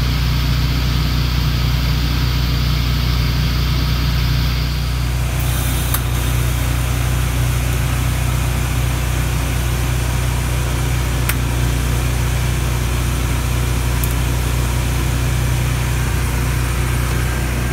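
An engine running steadily at idle. About five seconds in, a steady high hiss joins it, and a few sharp clicks come later.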